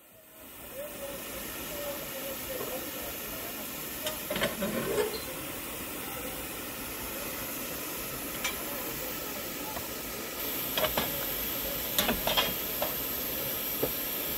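Steady hiss of steam escaping from a steam locomotive, fading in over the first second or two, with a few short clicks and knocks scattered through it.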